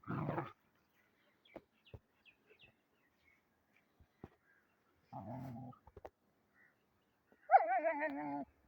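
A dog vocalising in three separate sounds: a short rough burst at the start, a brief low sound about five seconds in, and a louder wavering cry that falls in pitch near the end.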